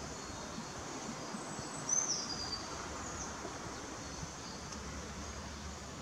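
Steady outdoor woodland background hiss with faint distant birds, and a short high bird chirp falling in pitch about two seconds in.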